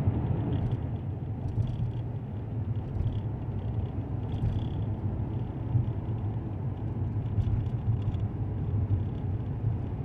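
Steady low rumble of a car driving at road speed, heard from inside the cabin: engine and tyre noise, with a few faint clicks.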